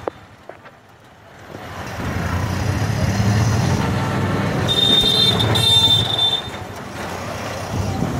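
Auto-rickshaw engine running as the rickshaw drives through a busy street, its low rumble building up after a quieter first second or so. A vehicle horn toots twice, high and short, about five seconds in.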